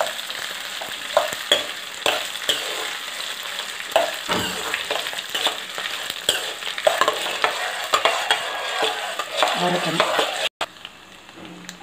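Dried red chillies sizzling as they fry in oil in a kadai, with a steel ladle stirring them and making frequent short scrapes and clicks against the pan. The chillies are being fried until they change colour. The sound cuts out for an instant near the end and is quieter after.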